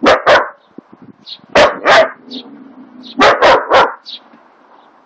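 Young lurcher barking: about seven short barks in three bursts, two, then two, then three.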